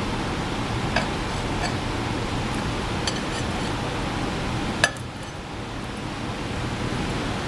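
Microwave oven running with a steady hum while a circuit board heats inside, broken by a few sharp snaps; the loudest comes about five seconds in, after which the hum dips for a moment.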